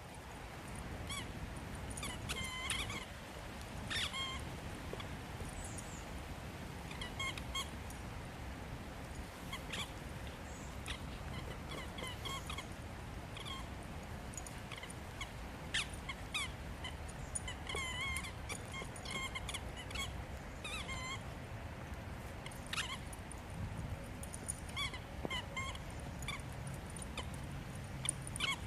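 Squeaky dog toy squeaked over and over by a miniature poodle at play: short high squeaks at irregular spacing, some bending in pitch.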